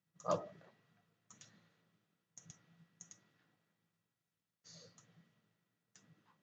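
Computer mouse clicking a handful of times, faint and sharp, with two quick double clicks near the middle; the first click, just after the start, is the loudest.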